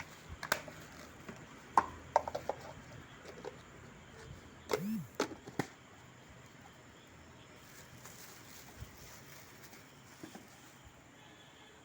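Scattered clicks and knocks of a plastic tiffin box being handled, over the first six seconds or so.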